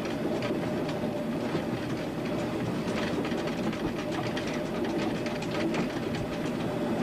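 Heritage train running along the track, heard from aboard through a window, with a steady running noise and scattered clicks of the wheels over the rail.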